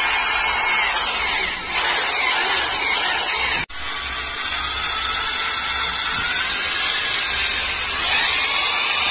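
Makita 22 mm rotary hammer running with no bit or load: a steady, even motor whir that cuts out for an instant about three and a half seconds in.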